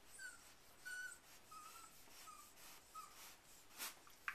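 Four-week-old Airedale terrier puppies giving about five short, faint, high squeaks in the first three seconds, followed by a couple of small clicks near the end.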